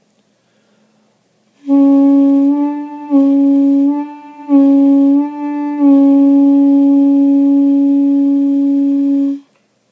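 Armenian duduk in A, a double-reed instrument, playing a held C-sharp that rises to D and back several times by tightening the bottom lip, a lip vibrato of about a half step, then settling into a long steady note. The playing starts about two seconds in and stops shortly before the end.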